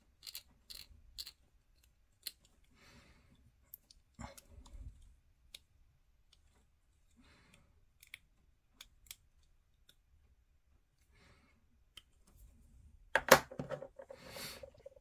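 Hobby knife scraping and trimming a small plastic miniature part: faint, scattered clicks and short scratches. Near the end comes a louder knock, followed by a little rustling.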